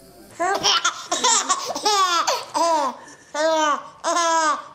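A baby laughing: a run of short, high laughs, each rising and falling in pitch, starting about half a second in and coming every half second to a second.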